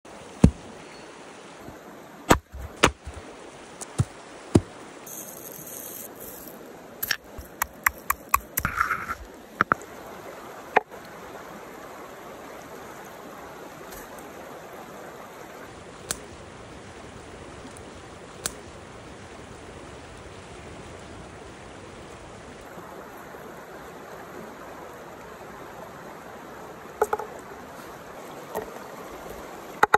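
A mountain stream's steady rush of water, with sharp knocks and clicks scattered over it, most of them in the first ten seconds and a few further apart after that.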